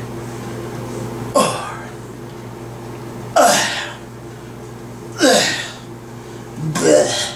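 A man's forceful grunting exhalations, four of them about two seconds apart, one with each stomach crunch as he works through a long set.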